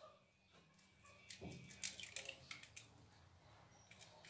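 Near silence: room tone with a few faint, short ticks and taps.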